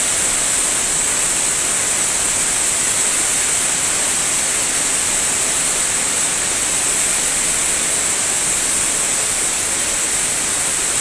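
Floodwater rushing across a flooded station floor: a loud, steady, unbroken hiss.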